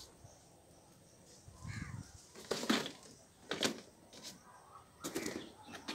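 A crow cawing: a few short, harsh caws, starting about two and a half seconds in.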